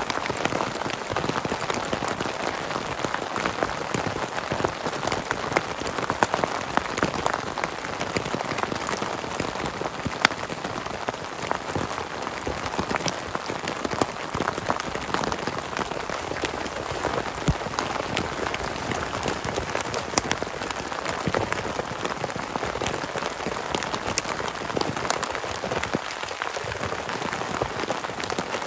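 Heavy rain falling steadily on a tent and the grass around it, with many sharp single drop hits standing out from the hiss.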